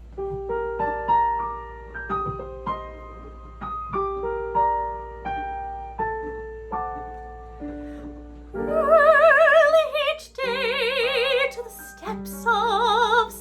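Solo piano playing a gentle introduction in separate, decaying notes. About eight and a half seconds in, a classically trained female voice enters with wide vibrato over the piano.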